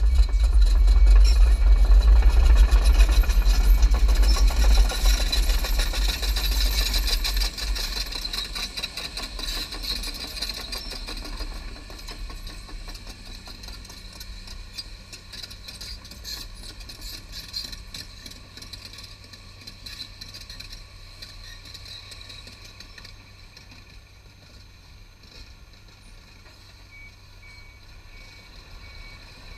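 Hyundai Robex 220LC-9A excavator's diesel engine running with a deep rumble as the machine moves away. It is loud for the first several seconds, then fades steadily.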